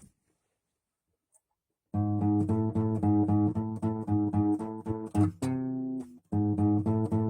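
Guitar strummed as a song's intro, starting about two seconds in: a steady run of chord strokes, one chord left ringing briefly past the middle, then the strumming picks up again.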